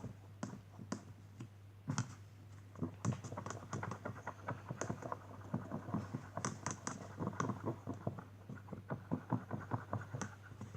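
Glue-based slime mixture with shaving foam and body lotion being stirred in a bowl: quick, irregular small clicks and sticky smacks, denser from about two seconds in.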